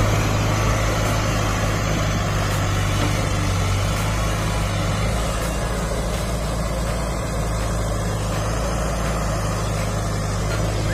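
Heavy diesel engine idling steadily, a low even hum.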